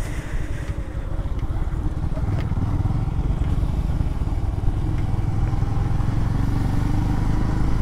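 Motorcycle engine running steadily while riding along, a low even drone with little change in speed.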